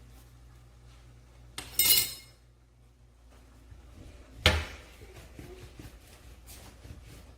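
Kitchenware clattering: a ringing metallic clink about two seconds in, then a duller knock about two and a half seconds later.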